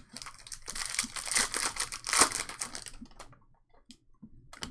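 Foil wrapper of a trading-card pack crinkling and tearing as it is opened, for about three seconds, with a sharp snap about two seconds in; light clicks follow as the cards are handled.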